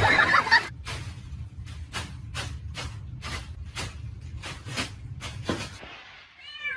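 Crumpled paper crinkling in a regular rhythm, about three sharp crunches a second, as a cat treads on it.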